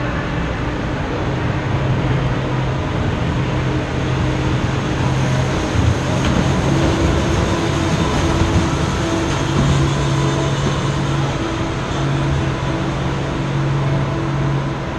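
Steady rumbling hockey-rink background noise with a low hum that comes and goes, and a single knock about six seconds in.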